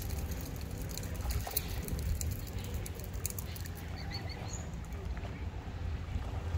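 Outdoor lakeside ambience with a steady low rumble. Scattered sharp clicks come in the first half, and a few short high chirps from waterbirds come about four seconds in.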